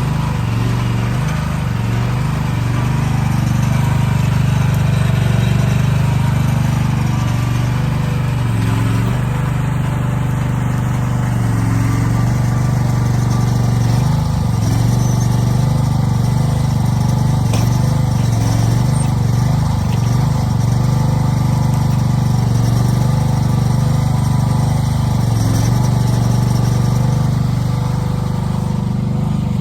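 Diesel engine of a piece of earthmoving equipment running steadily at working speed, its pitch dipping briefly a few times.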